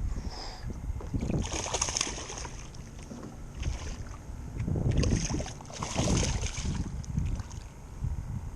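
Irregular splashing and knocking from a hooked snook being brought to a small boat, in bursts about two seconds in and again five to six seconds in.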